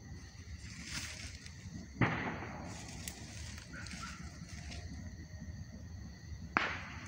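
Two sharp bangs about four and a half seconds apart, each fading out over about a second, over a steady high chirring of night insects.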